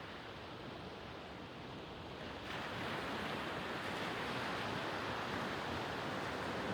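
Sea waves washing on the shore, a steady rushing wash that suddenly gets louder and brighter about two and a half seconds in.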